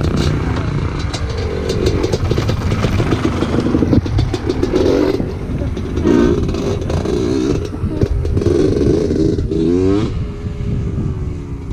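Dirt bike engines idling on the trail, the revs wavering, with one quick rev that rises and falls about ten seconds in.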